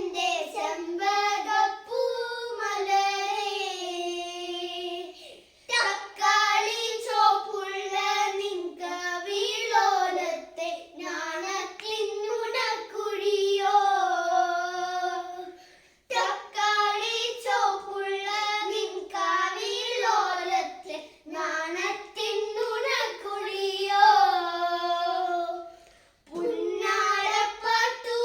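Children singing a Malayalam folk song (nadan pattu) without accompaniment, in high clear voices, in phrases a few seconds long with short pauses for breath about a third and two thirds of the way through.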